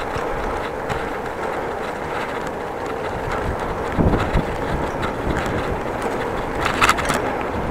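Bicycle rolling along, its tyres and frame giving a steady rumble over the pavement. There is a thump about four seconds in and a brief rattle near the end.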